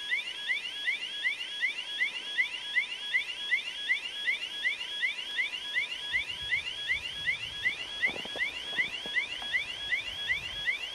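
Electronic railway warning signal sounding a steady run of short rising chirps, about three a second, with a faint steady tone beneath. A faint low rumble joins about eight seconds in as the diesel train approaches.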